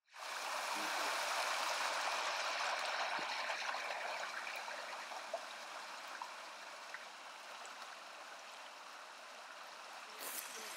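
Small stream pouring over a low stone weir into a pool: a steady rushing and splashing of water that slowly fades in the second half.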